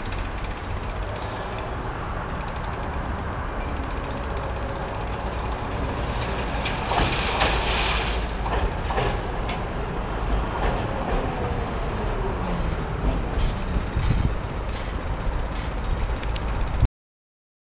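Tatra T5C5 tram moving off and rolling past on depot track: a steady rumble of wheels and running gear, with a brief high-pitched burst about seven seconds in and a few sharp clicks just after. The sound cuts off suddenly near the end.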